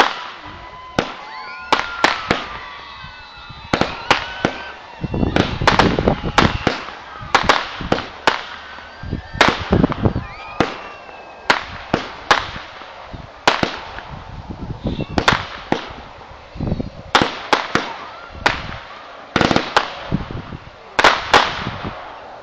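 Consumer aerial fireworks, a multi-shot cake, firing shot after shot: an irregular run of sharp bangs and pops, some in quick clusters, with crackling between.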